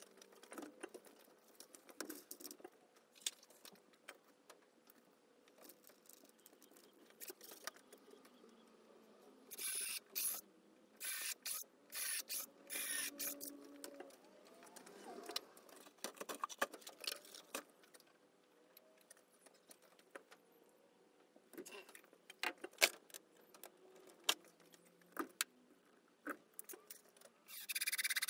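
Workshop handling sounds: tools and metal parts clicking, clattering and knocking as the lathe's motor mount and drive belt are worked on by hand. About ten seconds in comes a run of about five short hissing bursts, and another near the end.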